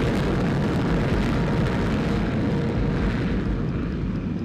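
Jet aircraft engine noise on a carrier flight deck: a loud, steady rush of sound that eases slightly near the end.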